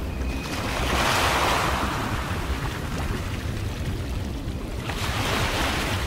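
Small waves washing against ice-coated rocks, swelling twice, about a second in and again near the end, over a steady low rumble of wind on the microphone.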